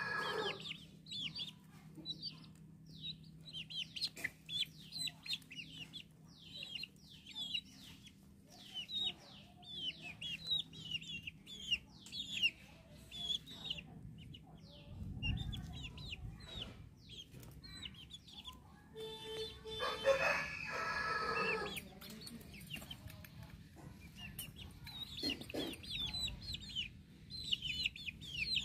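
Aseel chicks peeping: short, high, falling chirps, several a second, with one longer drawn-out call from a bigger bird about twenty seconds in and a low thud a little before it.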